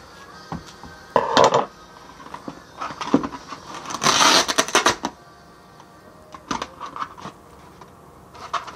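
Duct tape being handled and pulled off the roll onto a foam board: a short rasp of tape about a second in and a longer, crackling rip at about four seconds, with lighter taps and rustles of handling between.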